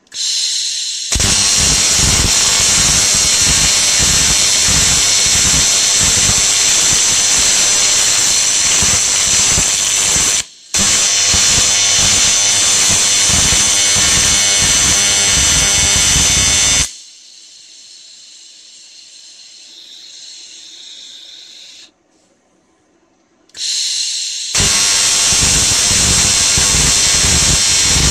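AC TIG welding arc on 1 mm aluminium plate: a steady buzz with hiss that runs about ten seconds, breaks for an instant, and runs on about six seconds more before dropping to a quieter hiss. After a short silence the arc strikes again near the end and settles back into its buzz.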